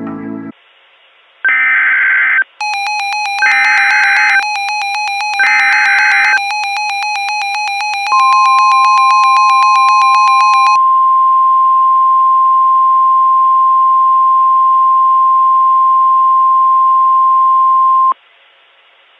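Emergency Alert System SAME header: three harsh data bursts about a second apart, over rapid electronic beeping. A steady NOAA Weather Radio 1050 Hz warning alarm tone follows for about ten seconds and cuts off abruptly near the end.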